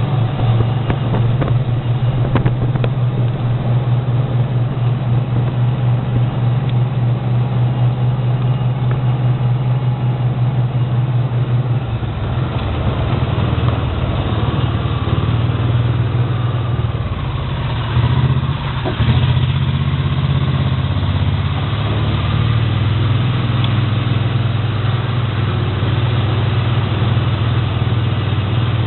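A machine running with a steady low hum; the hum shifts in pitch and becomes uneven about halfway through.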